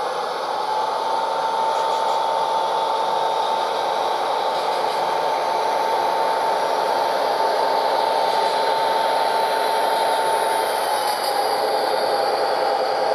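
HO-scale model diesel locomotives running past, their Tsunami 2 sound decoders playing diesel engine sound through small tablet and sugar-cube speakers. A steady high whine sits over the engine sound and drops slightly in pitch near the end as the trailing unit passes.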